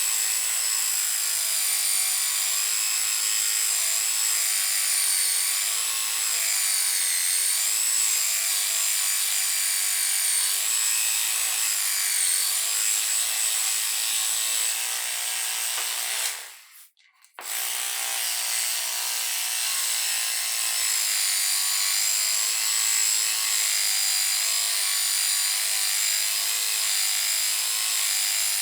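Black & Decker CHS6000 6-volt cordless hand saw running and sawing through wood, its motor whine wavering as the blade loads. It stops for under a second about two-thirds of the way through, then starts again.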